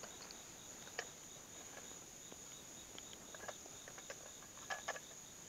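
Crickets chirping steadily, with a few faint clicks.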